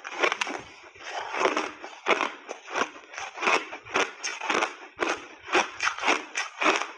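Close-up crunching of refrozen crushed ice being chewed in the mouth, a crisp crunch about twice a second, with a bite into a large frozen block near the end.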